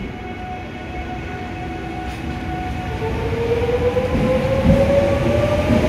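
A JR West 681/683-series limited express electric train pulling away from a station platform. A steady electrical hum gives way, about three seconds in, to a motor whine that rises steadily in pitch as the train accelerates, over a low rumble of the moving cars that grows louder.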